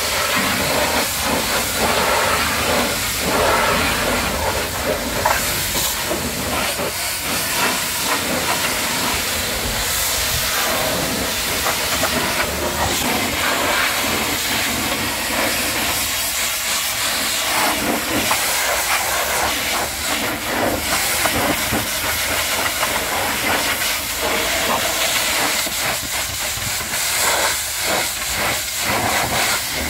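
High-pressure washer jet spraying against the steel frame, mudflaps and tyres of a semi-trailer: a steady, loud hiss and spatter of water that flickers slightly as the jet sweeps across the surfaces.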